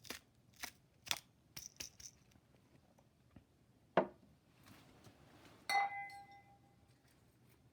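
Kitchenware being handled: several small clicks and taps, a knock about four seconds in, then a ringing clink near six seconds as a hard container is set down, its ring fading over about a second.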